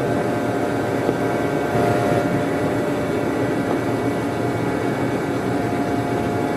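Steady engine drone of a passing RoRo ferry, a mix of rumble and noise with a faint thin whine running through it.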